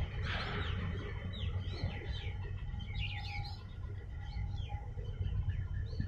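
Small birds chirping: a scatter of short, quick, falling chirps, over a steady low rumble.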